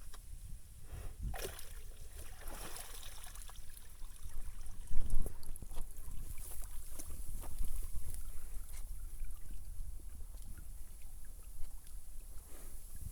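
Water sloshing and splashing as a buffalo moves about in it, with the loudest splash about five seconds in.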